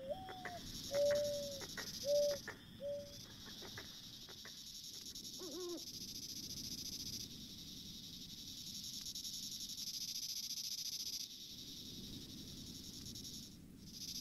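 Crickets chirping steadily through a rural night, with an owl hooting several short notes in the first three seconds, the loudest about a second and two seconds in. A single short call follows about five and a half seconds in.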